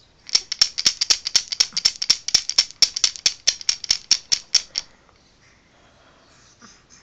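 Wooden baby rattle, a ring strung with painted wooden beads, shaken quickly: a fast run of bright clacking clicks, about six or seven a second, that stops about five seconds in.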